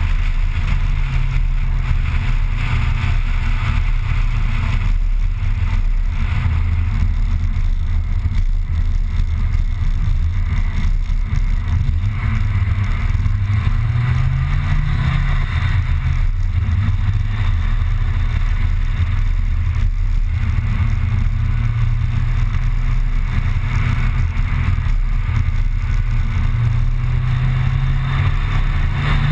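Car engine and tyre noise heard from inside a moving car's cabin, a steady low drone. The engine pitch climbs under acceleration about halfway through and drops back as it shifts up, then climbs again near the end.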